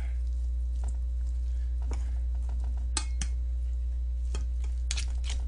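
Chopsticks stirring bibimbap in a metal bowl, with irregular sharp clinks and scrapes against the bowl, over a steady low hum.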